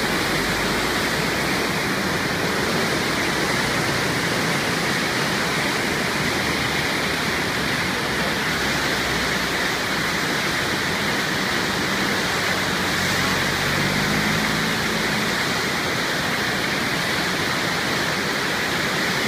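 The Arve river in heavy flood: fast, muddy, churning water rushing in a loud, steady, unbroken wash of noise.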